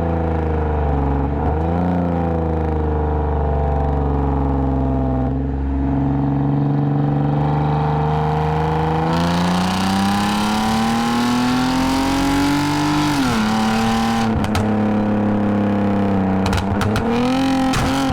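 2010 Lexus IS250 AWD's 2.5-litre V6 through an aftermarket full exhaust with valved mufflers, heard on the move: a steady cruising note, then about halfway through the pitch rises under acceleration and drops suddenly at a gear change before settling again. A few short knocks near the end.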